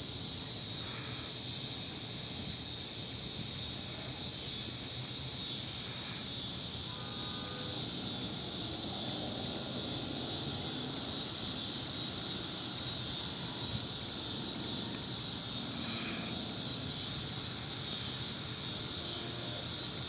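Outdoor ambience dominated by a steady high-pitched insect chorus, with a low background rumble and a few faint short chirps.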